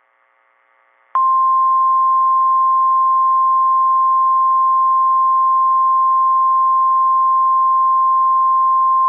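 NOAA Weather Radio warning alarm tone: a single steady high tone of about 1050 Hz that comes in sharply about a second in and holds, over radio hiss. The tone is the weather radio's signal that an alert message follows.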